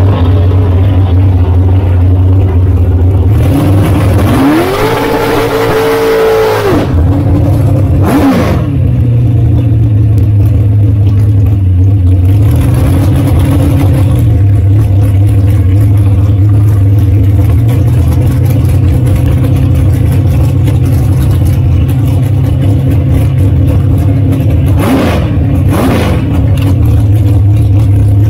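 Dragster engine running loud and close to the onboard microphone with a steady low drone. A few seconds in, the revs climb and hold briefly before dropping back. There is one quick rev blip about eight seconds in and two more near the end.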